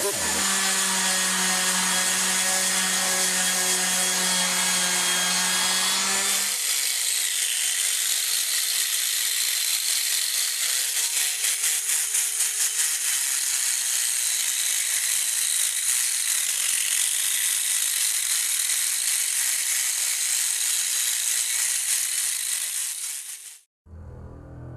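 Chainsaw engine running steadily at high speed for about six seconds, followed by a high hissing, rattling noise that cuts off abruptly near the end.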